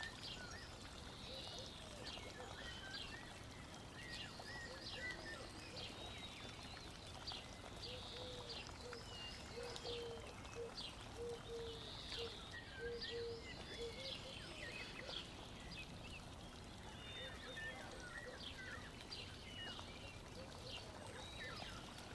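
Felt-tip marker squeaking and scratching on paper as it colours in, in faint, irregular short strokes.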